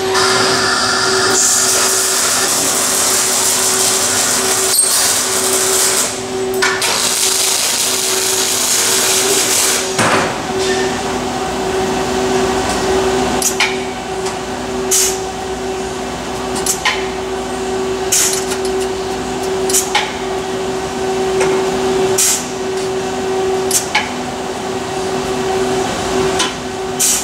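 Welding-cell machinery humming steadily, with a hissing noise for about the first ten seconds. After that come scattered sharp metallic clicks and knocks as a steel part is handled and clamped in a hand-turned weld fixture.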